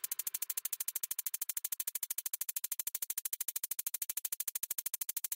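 Faint, fast electronic pulsing, about a dozen even pulses a second, strongest in the treble.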